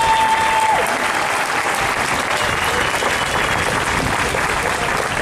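A crowd clapping steadily, with a short whistle near the start.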